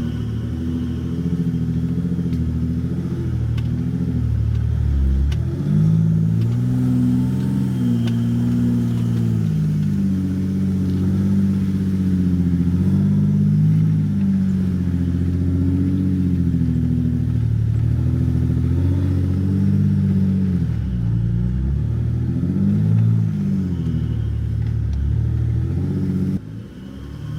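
Diesel Jeep Gladiator engine driving on the trail, its engine speed rising and falling, with two deep drops and climbs in pitch. The sound falls away sharply near the end.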